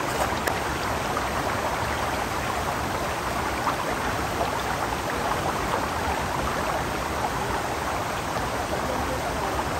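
Steady rushing noise of flowing water, even and unbroken, with a few faint clicks near the start.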